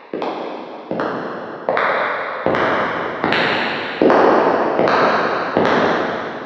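Footsteps walking on a hard surface: about eight even steps, a little under a second apart, each sharp strike ringing with echo. The steps grow louder as the walker comes closer, and the last one dies away near the end.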